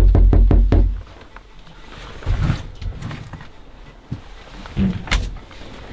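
A fist knocking rapidly on a panelled door, about half a dozen quick raps in the first second. A few softer thumps follow, and a sharp click about five seconds in.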